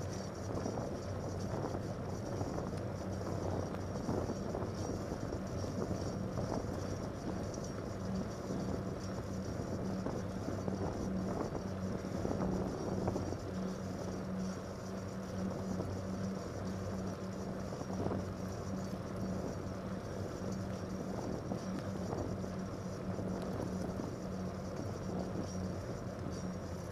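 Fat-tire bike rolling on wet pavement: steady tyre noise with a constant low hum.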